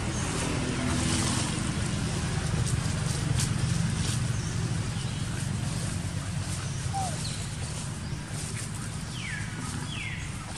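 Steady low outdoor rumble, with faint rustling and a few short falling squeaks, two of them close together near the end.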